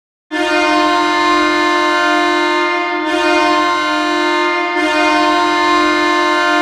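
Belleville Senators' hockey goal horn, sounding to signal a home-team goal: one long steady blast that starts a moment in and holds without a break.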